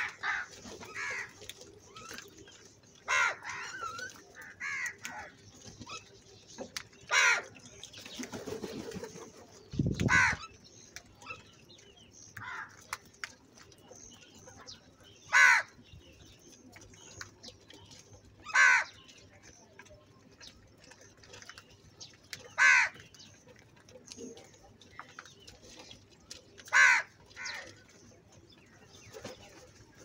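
A flock of house crows cawing: loud single caws every three to four seconds, with quieter calls in between.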